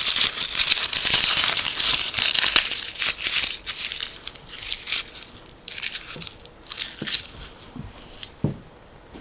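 A sheet of ordinary paper being crumpled, a dense crackling that is loudest over the first few seconds, then comes in shorter scrunches that thin out toward the end.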